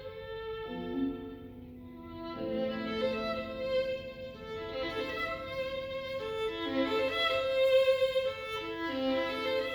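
Solo violin playing a slow passage of long bowed notes, sometimes two at once, growing louder from a couple of seconds in.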